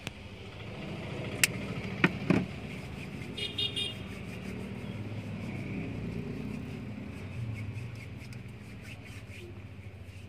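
A motor vehicle's engine rumbling past, heard from inside a parked car, swelling and then fading over several seconds. A few sharp clicks come between about one and a half and two and a half seconds in, and a brief high beep just before four seconds.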